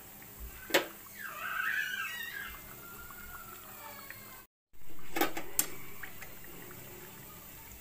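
Onion fritters deep-frying in a pan of hot oil, a steady sizzling hiss. A sharp click sounds about a second in and two more near the middle, and there is a brief high wavering sound early on.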